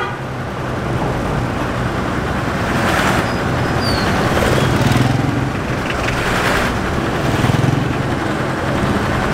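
Steady engine and road rumble heard from inside a vehicle driving slowly along a town street, with other traffic passing outside; the noise swells briefly about three seconds in and again near six and a half seconds.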